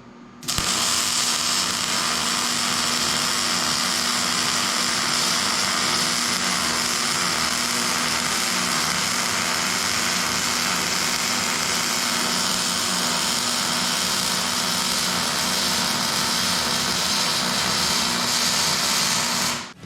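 Arc welding on a shortened steel truck frame: one unbroken weld bead, a steady hiss that starts about half a second in and cuts off just before the end.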